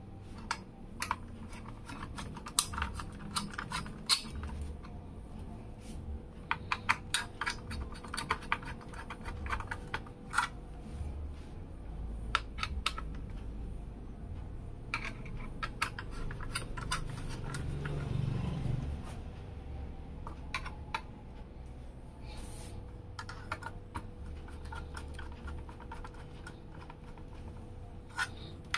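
Irregular small clicks and taps of fingers handling a motherboard and its AMD stock CPU cooler and fan cable, coming in short clusters.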